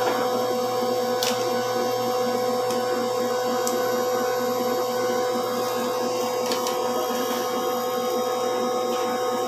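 A steady mechanical hum made of several fixed tones, unchanging throughout, with a few faint clicks on top.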